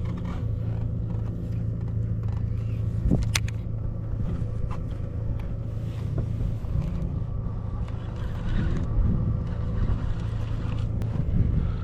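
Small boat's motor running steadily with a low hum, and a few light knocks, one about three seconds in.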